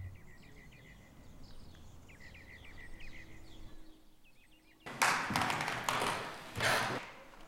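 Small birds chirping in short repeated notes over a faint outdoor background. About five seconds in come three loud bursts of scuffing noise.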